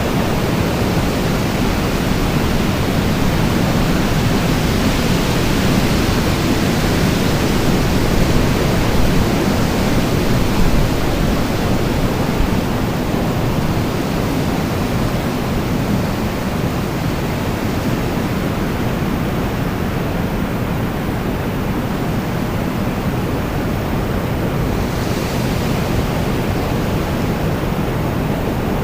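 Strong wind from a departing storm blowing steadily, a dense rushing noise heaviest in the low end, a little louder about a third of the way in, with a brief rise in high hiss near the end.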